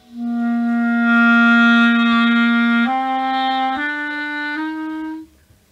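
Clarinet playing one long held low note, then three shorter notes, each a step higher, stopping about five seconds in.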